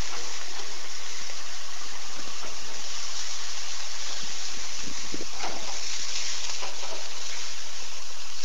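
Chicken pieces and sausages sizzling on a barbecue grill: a steady, loud hiss, with a few faint clicks around the middle.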